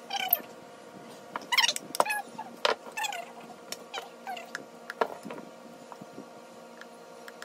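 A pet gives several short, high, whining calls, bunched in the first half, with a few sharp clicks from the glass baking dish being worked.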